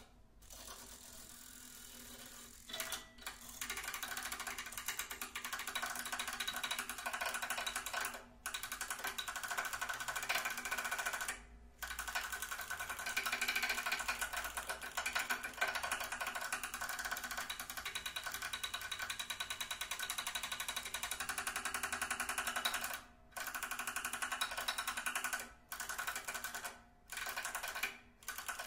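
Acoustic guitar lying flat with its strings mechanically agitated: a rapid, dense mechanical chatter over several sustained string tones. It starts faintly, grows louder about three seconds in, and cuts out abruptly for brief moments several times.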